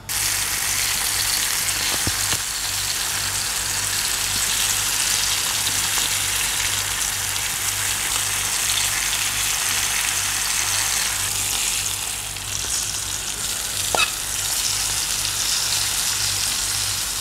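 Flour-coated sardines sizzling steadily in hot frying oil, with a single sharp crackle about fourteen seconds in.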